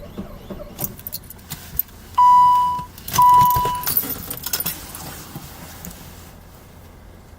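Car keys jangling and clicking on the ignition key ring, with two loud electronic chimes a second apart, each a steady tone about two-thirds of a second long. The chimes come from the Saab 9-5's warning chime as the key is turned on.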